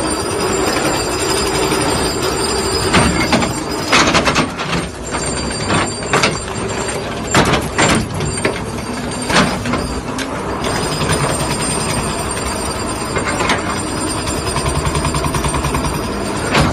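Excavator-mounted hydraulic ripper working into a rock face: a steady, loud mechanical din from the ripper and the excavator, broken by a series of sharp knocks and cracks as the rock breaks, mostly between about three and eleven seconds in.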